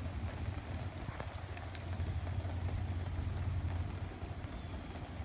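Rain falling on open water, a steady patter with a few sharper drop ticks, over a continuous low rumble.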